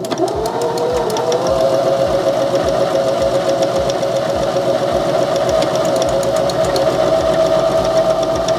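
Baby Lock Zeal sewing machine running under the foot control while stitching a one-step buttonhole. The motor whine rises in pitch over the first second as it comes up to speed, then holds steady, with a fast mechanical ticking of the needle stitching.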